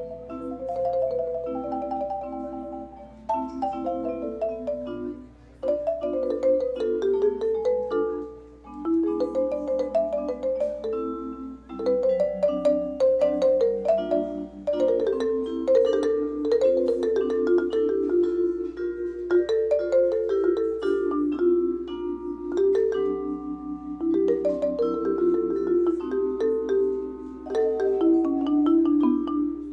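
Instrumental music played on tuned mallet percussion, with struck notes ringing on in chords and melodic runs.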